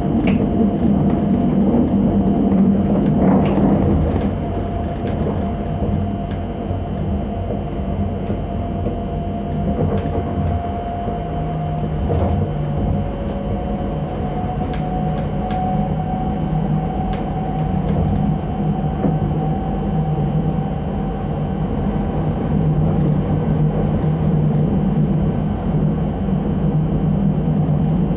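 ČD class 640 RegioPanter electric multiple unit running along the line: a steady rumble of wheels on rail under a thin motor whine that slowly rises in pitch as the train gains speed, with scattered clicks as the wheels pass over rail joints and points.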